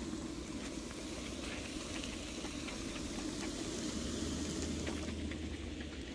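Cambodian beef skewers sizzling on foil over a Coleman portable propane grill, a steady hiss with fine crackling.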